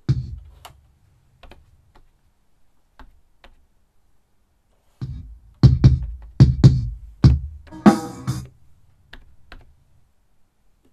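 Recorded drum-kit hits, heard in bits: one low kick-drum thump at the start, a few faint ticks, then a quick run of kick and snare hits about five seconds in that ends with a short cymbal splash near eight seconds.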